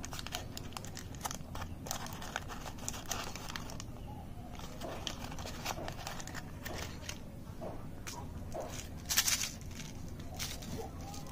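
Foil-and-paper chocolate wrapper crinkling and rustling in the hands as the bar is unwrapped, in a run of small crackles, with one brief louder rustle about nine seconds in.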